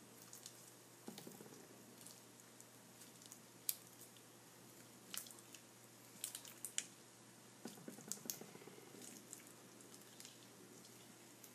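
Faint, scattered wet clicks and squelches of sticky homemade glue slime being kneaded and squeezed by hand.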